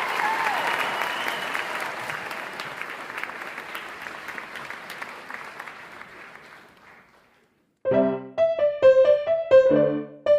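Audience applause that slowly dies away over about seven seconds. After a brief gap, a piano starts playing chords.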